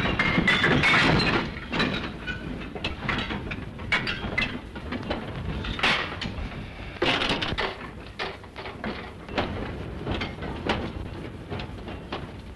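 Railway train with its wagons clanking and knocking irregularly, loudest at first and slowly fading away.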